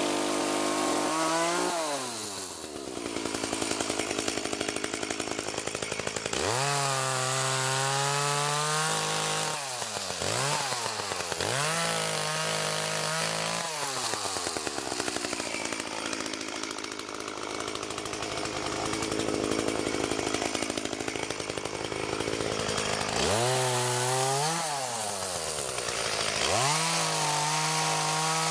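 Two-stroke chainsaw clearing small dead trees and brush: the engine revs up to full throttle and drops back again and again between cuts, with a few quick blips. Long stretches of cutting, the longest through the middle, sound rougher and less pitched as the chain bites into the wood.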